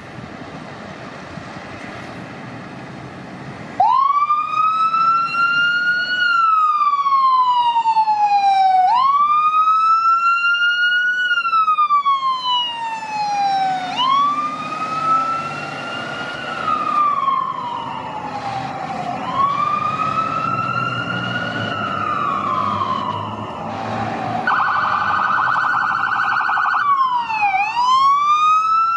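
Fire truck siren wailing. Each cycle rises quickly and falls slowly, repeating about every five seconds, after a quieter first few seconds. Near the end it switches to a rapid yelp, then quick sweeps down and up.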